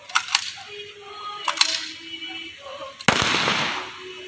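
A rifle volley from a funeral firing party about three seconds in: one loud crack that tails off over most of a second. It is preceded by two pairs of short sharp clicks, near the start and about a second and a half in.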